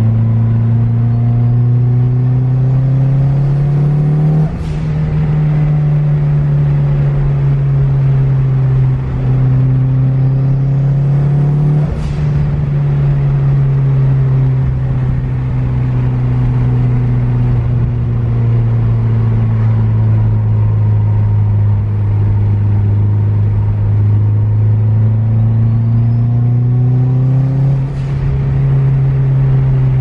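Turbocharged Mitsubishi 4G63 inline-four of a first-generation Eagle Talon, heard from inside the cabin while driving: the engine pitch climbs and drops sharply at three upshifts, about four, twelve and twenty-eight seconds in. A thin whistle rises along with each climb in revs.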